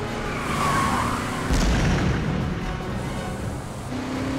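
Car-chase soundtrack of vehicle engines running under music, with a heavy boom about a second and a half in. Near the end an engine's pitch starts to rise.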